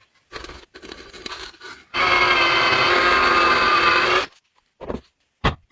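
A power tool grinding or sanding a knife blade for about two seconds, with a steady whine over the rasp, between short bursts of quieter scraping and cut-up snatches of the same work.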